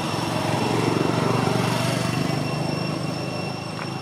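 A motor engine passing nearby: it grows louder over the first second or two, then fades away.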